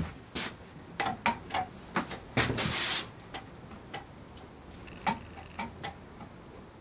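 A single heavy thud, then irregular knocks and scuffing footsteps on a concrete workshop floor, with a short rough scrape a little before the middle.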